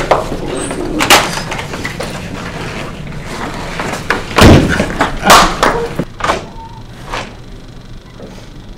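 Thuds and slaps of a staged hallway scuffle, a handful of separate hits, the loudest and heaviest about four and a half seconds in.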